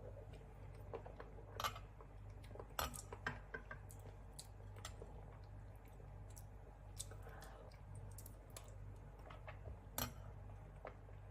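Scattered light clinks and knocks of kitchen utensils and dishes being handled, over a faint steady low hum.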